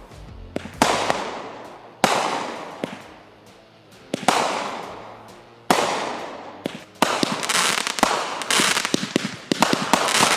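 Fireworks going off: four sharp bangs a second or two apart, each trailing off into a fading crackling hiss, then from about seven seconds in a dense run of crackling pops.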